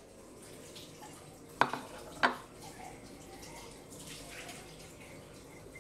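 Two sharp knocks about two-thirds of a second apart, over a steady faint hiss.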